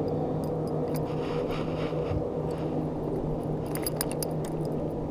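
A small fishing boat's motor humming steadily. About four seconds in there are a few sharp light clicks and rattles as a small white bass is lifted aboard on the line.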